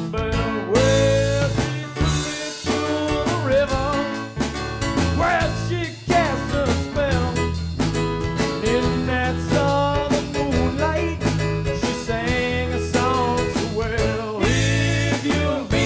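Live band playing through a PA: electric guitars, bass and drum kit with a steady beat and bending melodic lines.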